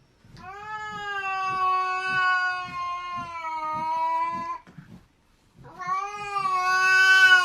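A domestic cat giving two long, drawn-out yowls at a steady pitch. The first lasts about four seconds, and the second begins about six seconds in.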